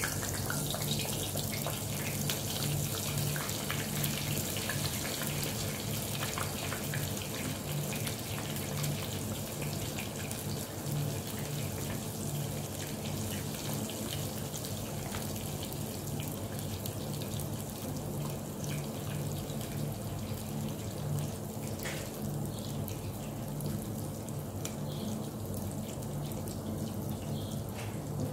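Breaded potato-and-cheese croquettes deep-frying in hot oil in a small pot: a steady sizzle with dense fine crackling, busiest in the first half and easing slightly later. A steady low hum runs underneath.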